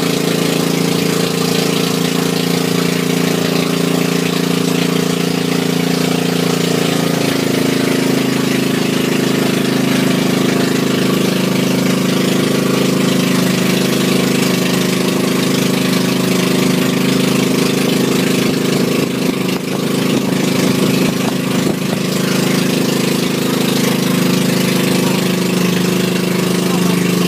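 Outrigger boat's engine running steadily, with a hiss of wind and water over it; its note changes about seven seconds in.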